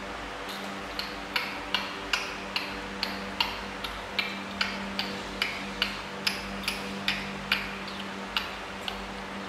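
Young macaques sucking milk from feeding-bottle teats, a short wet click with each suck at about two or three a second, over a steady low hum.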